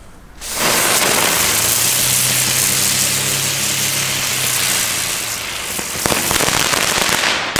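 Xplode Storm humming ground spinner (Brummkreisel) firework burning: a loud rushing hiss starts suddenly with a steady low hum under it, then crackles join near the end as the spinner changes colour, and it cuts off abruptly.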